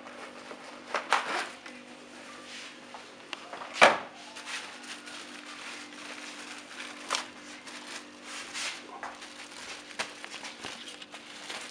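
Cardboard box and plastic wrapping of a new panel air filter being handled and opened: irregular crinkling and rustling, with the sharpest crackle about four seconds in, over a faint steady hum.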